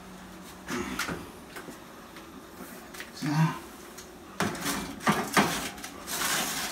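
Foil-lined baking pan being slid onto the rack of a gas range oven: a few metal knocks and clatters, a quick cluster of them about two-thirds of the way through, then a short scraping rustle as the pan goes in.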